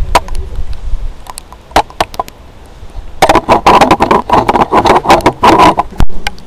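Wind buffeting the microphone, with scattered raindrops tapping on the camera. About three seconds in, the tapping turns into a dense, rapid patter of drops hitting the camera.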